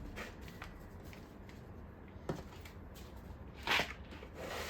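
Small tools and parts being moved around in a tabletop tool tray: scattered light clicks and taps, with a louder rustling clatter near the end.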